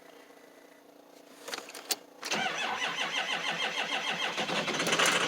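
Ford 6.0 Powerstroke V8 turbodiesel cold-starting at 17°F: a few clicks, then about two seconds in the starter cranks and the engine fires almost at once and runs with a fast, rough rhythm that grows louder. Injectors 1 and 5 are bad, so those cylinders misfire.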